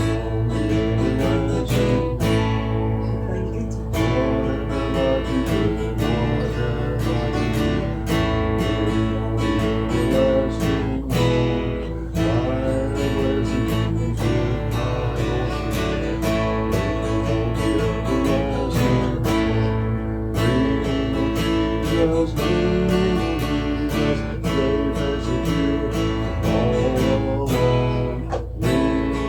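Acoustic guitar strummed in a steady rhythm, playing without singing.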